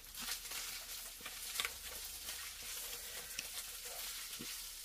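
Soft rustling of paper and paper bills being handled in a ring binder, with a few light clicks and taps.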